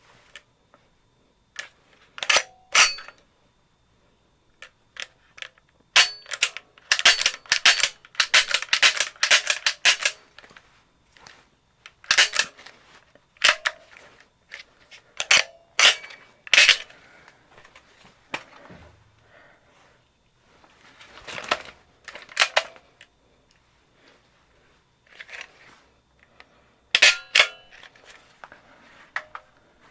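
Heckler & Koch USP40 pistol being handled with a dummy round: the slide is drawn back a little and let go in press checks, the hammer snaps down in dry fire, and the decocker drops the hammer. The sound is a string of sharp metallic clicks and clacks with pauses between them, thickest in a quick flurry from about six to ten seconds in.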